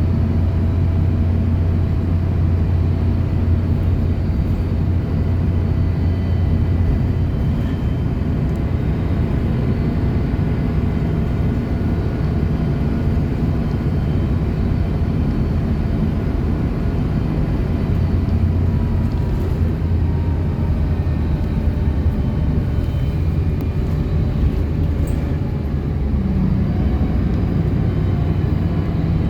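City bus running along the road: a steady low engine drone with road noise.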